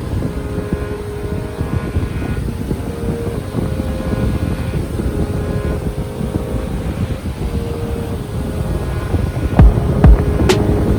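Sea waves with wind buffeting the microphone: a steady low rumbling noise with faint steady tones underneath. A few heavy thumps come in near the end.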